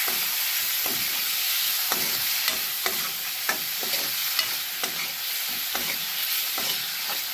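Onions, green chillies and tomato sizzling in hot oil in an aluminium kadai, frying the masala for egg bhurji. A metal ladle stirs them, scraping and tapping against the pan about once or twice a second.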